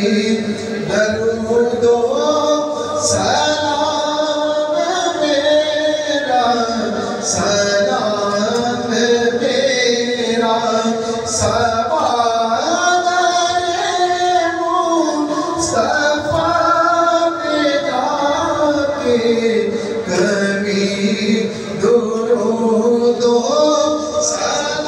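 A man's voice chanting an unaccompanied Islamic devotional recitation in praise of the Prophet, a naat or salaam, with long held and gliding notes, amplified over a loudspeaker.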